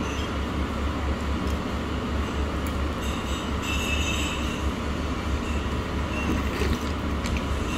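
Steady low rumble of restaurant room noise, with a few light clicks and a brief high tone about four seconds in.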